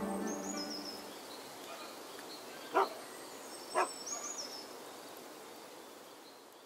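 A dog barks twice, two short barks about a second apart, with birds chirping now and then.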